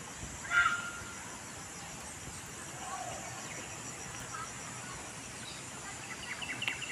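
Rural outdoor ambience: a steady, high-pitched insect drone, with one brief louder call about half a second in and a few short chirps near the end.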